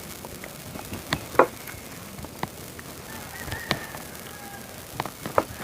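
Light, irregular knocks and clicks of a kitchen knife and utensils on a cutting board while raw tuna is sliced. The loudest knock comes about a second and a half in.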